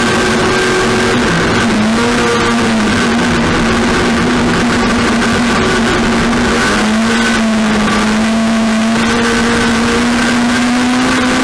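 Racing engine running hard at steady high revs, its pitch dipping briefly about two seconds in and again around seven seconds in, as if lifting or shifting.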